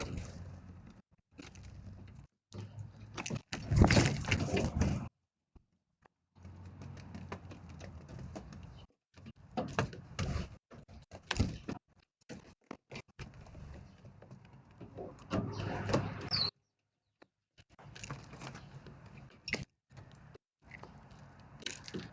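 Patchy outdoor background noise, mostly low rumble with scattered clicks, cutting out abruptly several times. A single short high bird chirp comes about sixteen seconds in.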